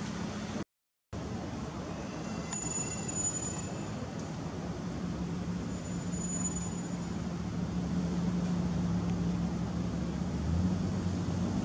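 Steady outdoor background noise with a constant low machine-like hum, cut by a brief drop to silence just under a second in. A faint high-pitched call sounds about two and a half seconds in.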